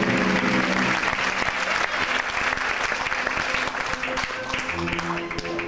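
Audience applauding, a dense patter of many hands clapping, as the music drops out; music starts up again near the end.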